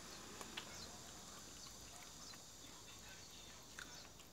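Jindo dog licking ice cream from a small plastic cup held out to it: a few faint, scattered wet tongue clicks over a quiet background.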